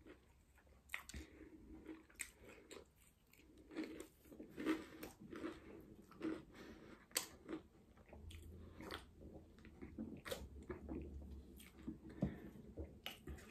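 Close-up chewing and biting of a fried veg samosa, with many irregular crunchy mouth clicks and crackles.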